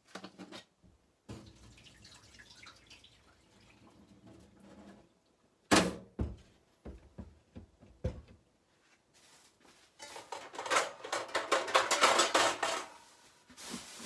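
Food-handling noises on a stainless-steel kitchen counter: a sharp knock about six seconds in and a few softer knocks after it, then a dense run of rapid clatter and rustling for about three seconds near the end.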